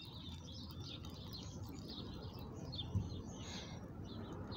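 Birds chirping and singing, over a faint trickle of water draining from a small live-steam locomotive's boiler and tank onto gravel ballast. A soft bump about three seconds in.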